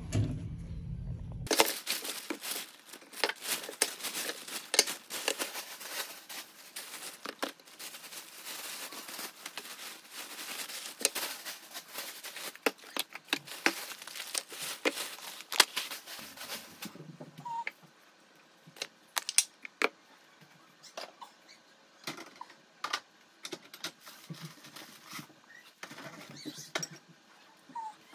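Packaging being handled close up: dense crinkling and tearing for about fifteen seconds, then sparser rustles and taps.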